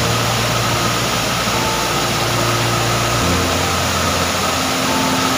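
Muddy floodwater and debris rushing down a hillside torrent: a loud, steady rush of water.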